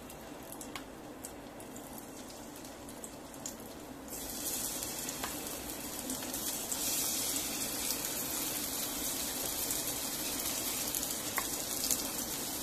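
Battered shrimp frying in hot oil in a pan, sizzling. The sizzle is faint at first and grows much louder about four seconds in as more pieces go into the oil.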